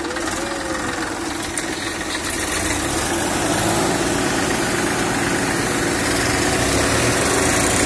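Massey Ferguson 241 DI tractor's three-cylinder diesel engine running steadily, getting gradually louder from about two seconds in as it works under load towing another tractor on a rope through mud.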